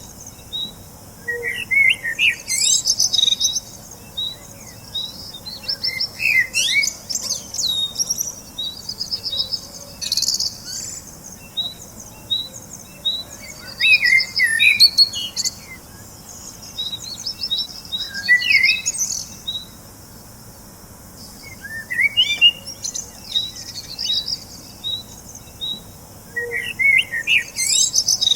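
Birds singing: a steady series of short, evenly spaced chirps, with louder warbling song phrases breaking in every few seconds.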